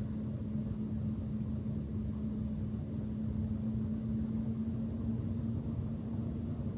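Steady low room tone with a faint steady hum running under it.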